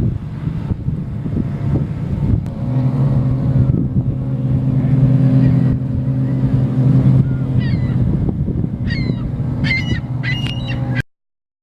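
Wind buffeting the microphone over lapping waves, with a steady low motor hum from about two seconds in. From about two-thirds of the way through, birds give repeated short honking calls, more and more often, until the sound cuts out abruptly near the end.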